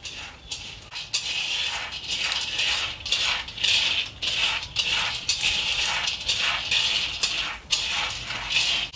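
Dry peanut pods and empty shells rustling and crackling as a hand rummages through them in a woven bamboo basket. The sound is a dense run of quick, brittle clicks.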